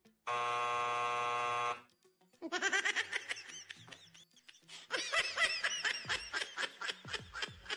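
A steady buzzing tone for about a second and a half, then a long run of high-pitched giggling laughter in quick repeated syllables.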